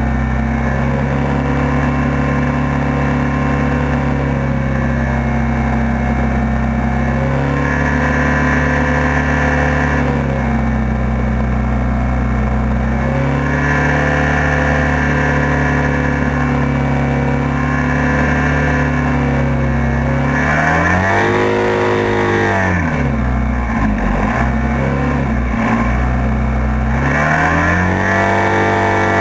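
Hovercraft engine running hard under way. Its pitch dips and recovers a few times, then swings sharply up and down twice in the last several seconds as it is revved.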